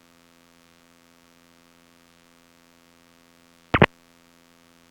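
Aircraft intercom and radio line feed, almost silent between transmissions, with a faint, steady electrical hum. About four seconds in there is one short, sharp burst of radio noise, like a squelch break or a key click.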